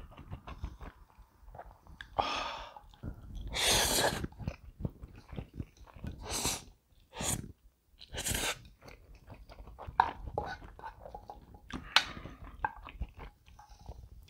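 Close-miked eating of Samyang Cream Carbo Buldak instant noodles: several slurps in the first nine seconds, with wet chewing and small mouth clicks throughout.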